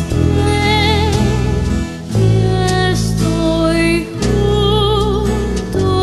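Band music from bass, guitar, drums and keyboards: long held low notes under a lead melody with vibrato.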